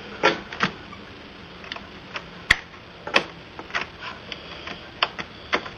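Irregular clicks and knocks of a USB cable's plug being handled and fitted into a laptop's USB port, about a dozen scattered sharp clicks.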